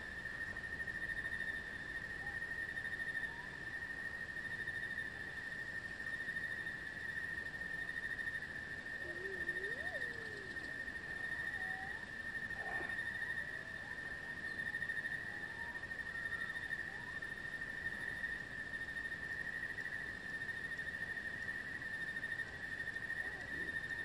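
Steady chorus of insects, such as crickets, chirring on one unbroken high pitch, with a few faint, short calls near the middle.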